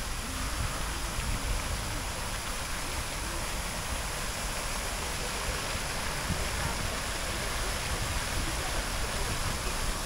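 Steady rushing noise with no distinct sounds standing out.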